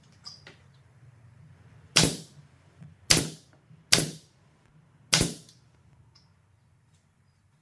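Four sharp knocks about a second apart, each ringing briefly, over a faint low hum.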